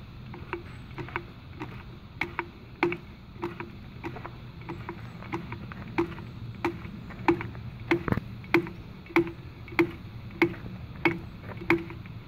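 Hand lever grease gun being pumped on the track-tensioner grease nipple of a Terex TC25 mini excavator, clicking at each stroke, about three clicks every two seconds, as grease is forced into the adjuster to tension the rubber track. A steady low hum runs underneath.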